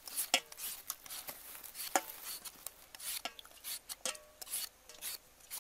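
A knife shaving the peel off a green mango in a quick series of short scraping strokes, a few with a light ringing knock on a metal bowl.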